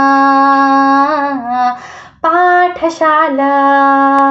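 A young female voice singing a Kannada song solo. She holds one long note, takes a breath about two seconds in, then sings a short rising phrase that settles into another long held note.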